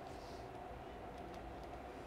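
Steady low background hum with a few faint, short clicks just after a second in.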